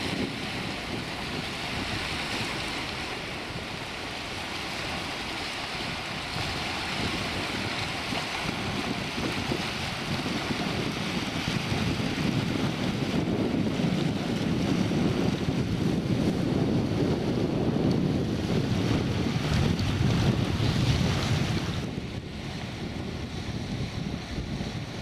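Small waves of shallow, muddy seawater washing over rock ledges and mudflat at the water's edge, with wind buffeting the microphone, heavier in the middle and easing near the end.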